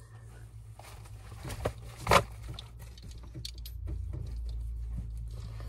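Washcloth rubbed and patted against a wet face: soft rustling with a sharp tap about two seconds in, over a steady low hum.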